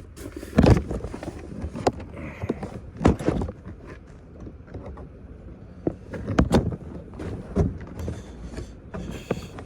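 Scattered knocks, clunks and footsteps as things are handled and set down, about a dozen separate hits, the loudest about half a second in.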